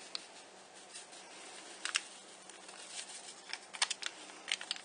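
Handling and shaking out a paper seasoning packet over a slow cooker: a few short sharp ticks and light rustles, scattered about a second or two apart, over a faint steady hum.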